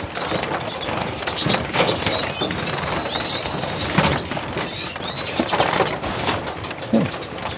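Caged siskins and redpolls chirping, with a quick run of high chirps about three seconds in, while being caught by hand, amid knocks and rustling from the handling and the cage.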